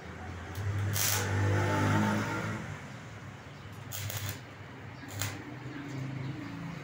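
Stick (arc) welding tack welds on a small steel-bar grille: short crackling bursts of the arc about a second in, around four seconds, and a shorter one past five seconds, over a low hum.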